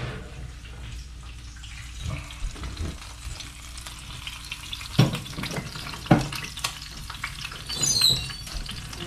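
Rib roast sizzling in a very hot cast-iron skillet. Over the sizzle come a few clunks of cookware being handled, the two loudest about five and six seconds in, and a short high squeal near the end.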